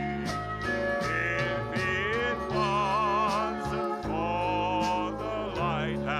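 Country gospel music with guitars: steady bass notes underneath and a melody line that slides and wavers in pitch.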